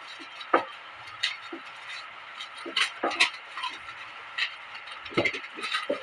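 Irregular handling noises from unpacking lawn mower parts: scattered short clicks, taps and rustles of packaging and parts being moved, with no motor running.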